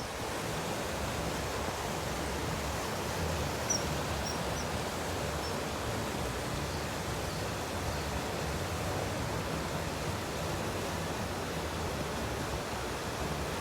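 Steady rushing of flowing river water, with a few faint, short high chirps about four to five seconds in.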